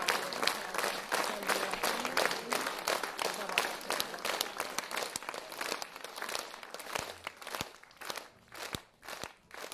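Audience applauding, dense at first and thinning out to a few scattered claps in the last few seconds.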